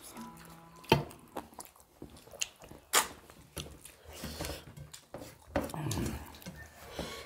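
Close-up eating sounds of people eating rice and chicken-spinach curry by hand: wet chewing and lip smacks with scattered sharp clicks, the loudest about one and three seconds in. A short low hum falls in pitch about six seconds in.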